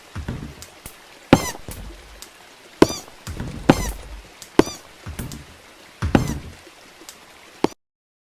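Walking sound effect: a heavy footstep about every second and a half, each a sharp knock with a brief ringing tone, with softer thuds between. It cuts off suddenly near the end.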